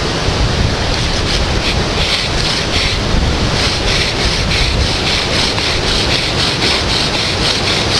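Hurricane wind buffeting the microphone, steady and loud, over the regular rasping of a bow drill: the spindle grinds in the hearth board notch at about three strokes a second, friction worked up to make an ember.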